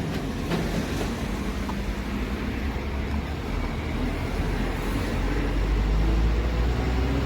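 Delivery truck's engine running under way with steady road noise, its note climbing in pitch over the last couple of seconds as it accelerates.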